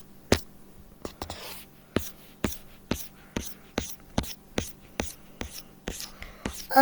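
A steady run of sharp clicks, about two a second, over a faint steady hum.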